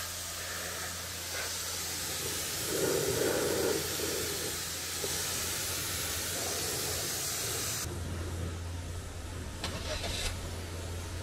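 A high-pressure jet at a car wash hissing steadily over a low machine hum. The hiss cuts off sharply about eight seconds in, leaving the hum louder, and a couple of short clicks follow.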